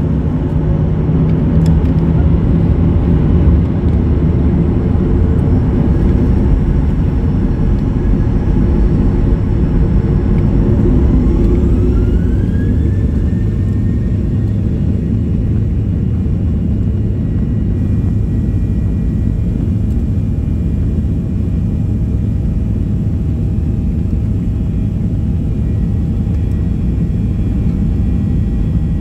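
Boeing 737 heard from inside the cabin at the start of its takeoff roll: a steady deep rumble from the engines and wheels. About ten seconds in, the jet engines' whine rises quickly as they spool up to takeoff power, then holds steady.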